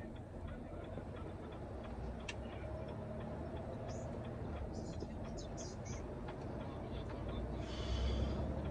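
Turn-signal indicator ticking steadily inside a truck cab over the low, steady rumble of the running engine. Near the end a brief, louder hiss rises over it.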